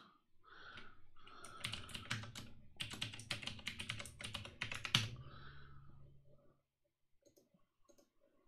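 Typing on a computer keyboard: a quick run of key presses lasting about three seconds, ending with one harder keystroke, then a few faint clicks near the end.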